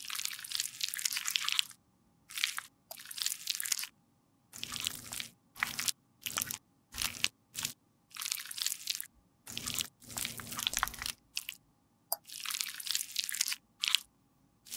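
Metal spatula scooping soft red lipstick gel from a jar and dropping it into a small glass beaker: about a dozen bursts of crisp, sticky crackling, each half a second to two seconds long, with short silences between.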